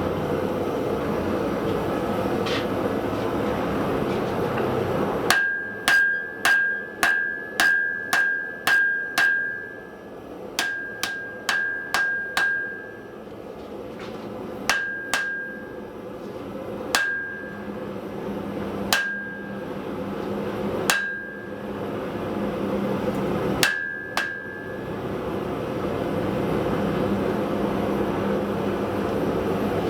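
Hammer blows on a billet of wrought iron and 5160 spring steel on the anvil, each strike ringing briefly: a quick run of about eight blows half a second apart, a few more, then single blows about every two seconds. A gas forge runs steadily underneath, louder before and after the hammering.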